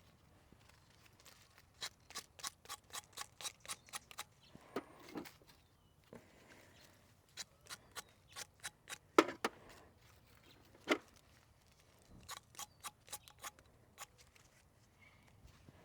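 Runs of rapid light clicks, about six a second, in three bursts with pauses between, and a sharper knock about nine seconds in and another near eleven.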